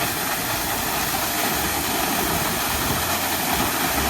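Hot-spring waterfall pouring steadily: an even rushing hiss of falling water.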